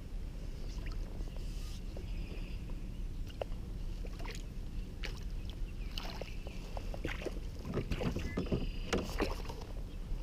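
Scattered clicks, knocks and clatter of a freshly netted pickerel and fishing gear being handled, over a steady low rumble; the knocks come thickest in the second half.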